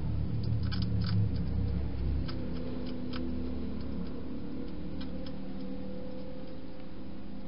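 A hedgehog chewing dry food, with crisp crunching clicks coming a few at a time and then pausing. A low steady hum lies underneath.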